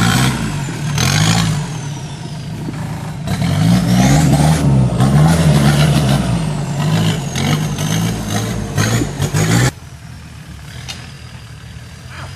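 Off-road 4x4's engine revving up and down repeatedly under load, with a thin high whine that rises and falls with it and scattered knocks. About ten seconds in the revs drop suddenly to a low, steady running.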